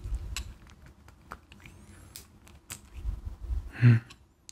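Close-up handling of a medicine bottle's metal screw cap being twisted by fingertips: scattered small clicks and scrapes, with one louder short bump near the end.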